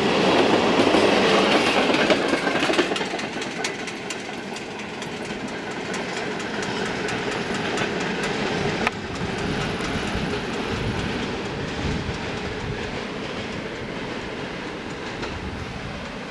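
Empty open coal wagons of a freight train rolling past, their wheels clattering and clicking over the rail joints. Loud for the first three seconds as the last wagons go by, then fading steadily as the train moves away.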